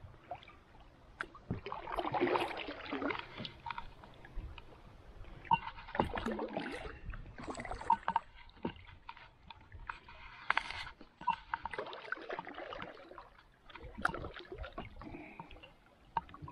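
Kayak paddle strokes splashing and dripping in shallow river water, in several bursts, with many small knocks and clicks in between.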